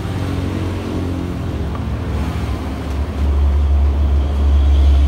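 A motor vehicle engine running close by, a steady low hum that grows louder about three seconds in.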